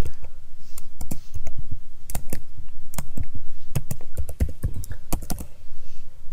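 Computer keyboard typing: a run of irregularly spaced keystrokes.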